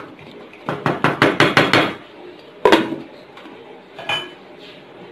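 A wooden spoon knocked against the rim of a metal cooking pan in a quick run of about eight taps. Then a glass pot lid with a steel rim clanks down onto the pan, followed by a lighter ringing clink, covering the beef karahi to simmer on low heat.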